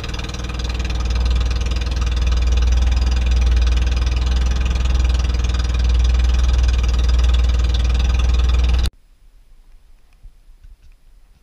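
A small wooden fishing boat's engine running steadily under way, a loud deep drone. It cuts off abruptly about nine seconds in, leaving only faint small ticks.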